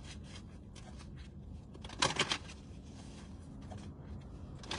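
A deck of cards being shuffled: one short riffling burst about two seconds in, with fainter card rustling around it.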